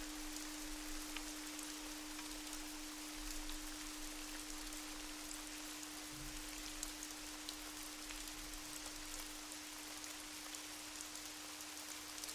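Meditation soundscape: a steady hiss of rain with scattered small drop ticks over a single unbroken drone tone. No singing bowl is struck.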